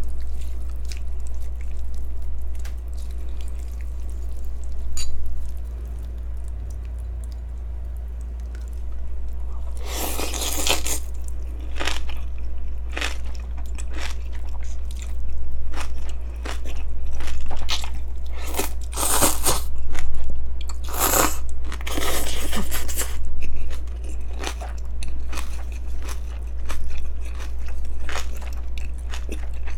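Close-miked eating of yeolmu naengmyeon, cold noodles with young radish kimchi: crisp crunching and wet chewing as the radish greens are bitten. There are a few louder noisy slurps of noodles, from about ten seconds in and again around twenty seconds, over a steady low hum.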